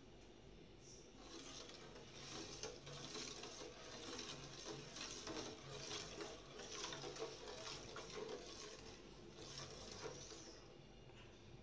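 Steel ladle stirring a milky liquid in a stainless steel pot, the liquid sloshing and the ladle scraping and clinking against the metal, from about a second in until near the end.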